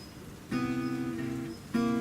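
Yamaha acoustic guitar strummed: a chord about half a second in rings for about a second, then a second chord is struck near the end.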